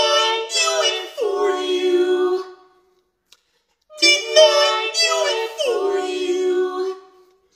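Music with a high-pitched singing voice: the same short sung phrase twice, each sliding down onto a held low note, with about a second of silence between.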